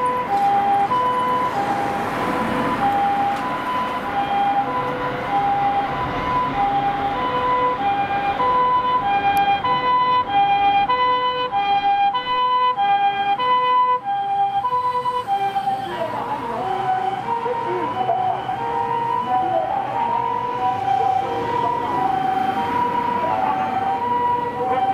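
Japanese ambulance two-tone siren sounding its "pee-po" call, alternating steadily between a high and a low tone, over road traffic. From about two thirds of the way in, the tones bend and waver in pitch.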